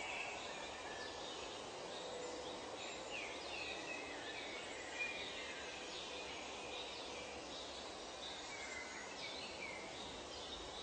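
Nature soundscape: a steady, even background hiss with many short bird chirps and calls scattered through it, one a little louder about five seconds in.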